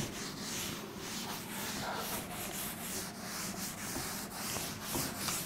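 Cloth duster rubbing chalk off a chalkboard in repeated wiping strokes, a dry swishing hiss.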